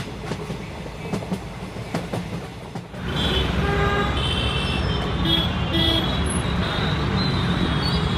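The tail of a freight train clacking over the level-crossing rails. About three seconds in, the waiting motorcycles and traffic start moving, with engine noise and several short horn honks.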